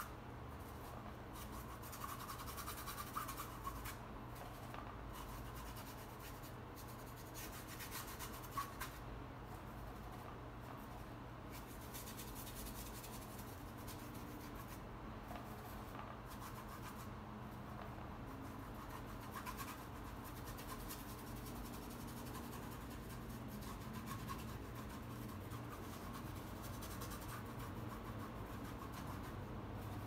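Faint scratchy rubbing of a paintbrush's bristles dragged across canvas, laying on thick dark acrylic paint in irregular strokes.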